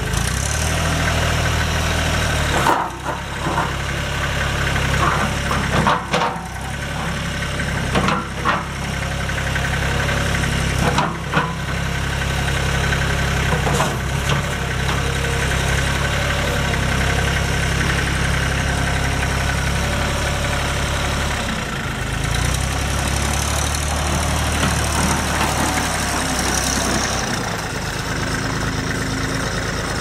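Hinomoto E2004 tractor engine running at idle, broken by several short knocks or clanks during the first half. Its note shifts briefly a few times later on.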